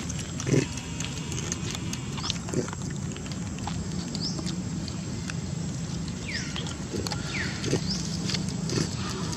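Monkeys calling with short squeaks and falling squeals over a steady low hum, with scattered clicks and knocks.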